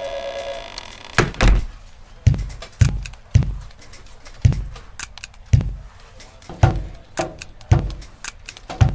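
Heavy thuds repeating at a steady pace, about two a second, starting about a second in.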